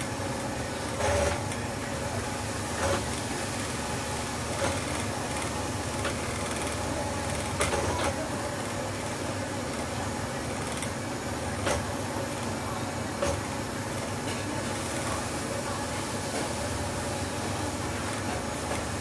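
A long utensil knocking and scraping against a large stainless-steel stockpot as the pot is stirred, giving a few sharp clanks scattered over a steady background hum.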